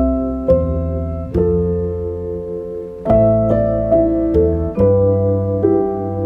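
Background piano music: slow chords struck roughly once a second, each left to ring and fade.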